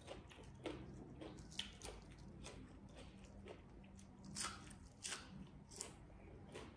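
Faint close-up mouth sounds of chewing a sprig of fresh dill: soft wet crunches and smacks, with a few sharper crackles in the second half.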